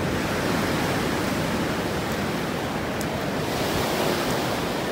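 Ocean surf washing onto a beach: a steady, even rush of breaking waves.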